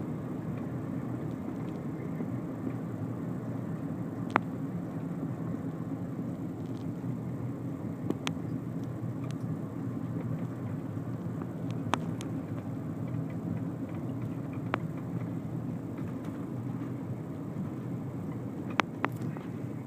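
Steady low road noise of a car driving along a country road, with a handful of short, sharp clicks or knocks scattered through it.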